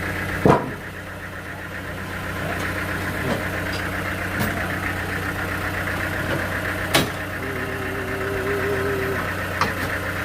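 Engine running steadily with an even drone, with sharp knocks about half a second in and about seven seconds in.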